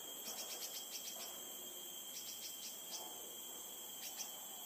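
Steady, high-pitched drone of forest insects, several tones at once, with quick runs of short high chirps in the first second, around two seconds in and again near the end.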